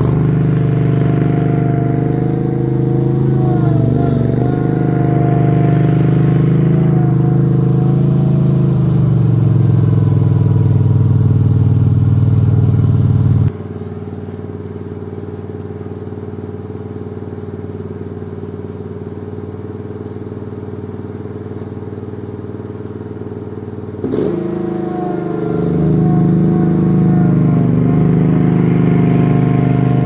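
Wacker Neuson RD12 ride-on vibratory roller's 24-horsepower Honda V-twin engine running steadily as the roller drives. About halfway through the sound drops suddenly to a quieter, thinner hum for about ten seconds, then comes back loud just as suddenly.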